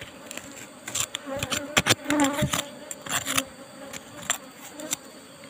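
Asian honeybees (Apis cerana) buzzing in a steady hum around their broken-open nest. Over it come several scrapes and knocks of a tool digging at soil and stone to widen the nest cavity, the loudest clustered between about one and three and a half seconds in.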